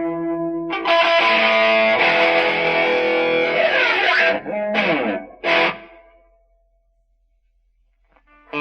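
Electric guitar played through a WIZZ Distortion pedal: held distorted chords, with the pitch sliding down about three to four seconds in. Two short chord stabs follow, then the sound dies away to silence for about two seconds before a new chord comes in at the end.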